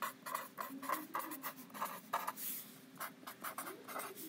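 Felt-tip pen writing a word out on paper: a quick, uneven run of short pen strokes.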